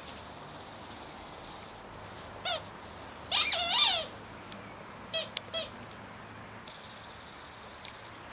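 Puppies yelping and squealing in play: one short high yelp, then a louder run of overlapping squeals, then two more short yelps.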